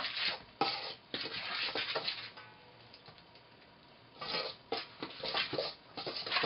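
Spoon and fingers mixing flour and water into soft dumpling dough in a stainless steel bowl: irregular scraping and rubbing. It goes quiet for about a second and a half in the middle, then picks up again.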